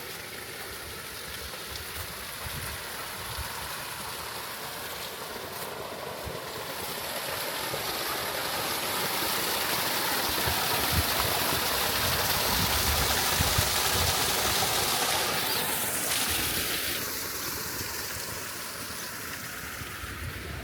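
Running water, a stream or small cascade, rushing steadily. It swells louder through the middle and fades again near the end, with irregular low rumbles underneath.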